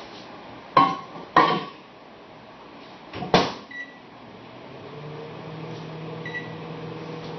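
Microwave oven with a metal bowl being loaded: two loud knocks as the bowl goes in, the door shut with a bang, short keypad beeps, then the oven starts running with a steady hum about five seconds in.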